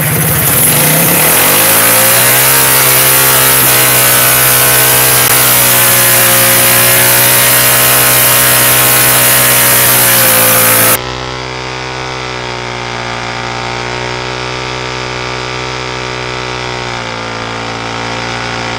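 Mini bike's Predator 212 single-cylinder engine revving up sharply and then held at high revs, wavering slightly, as the rear tire spins on concrete in a burnout. A little past halfway the sound turns quieter and duller while the engine stays at high revs.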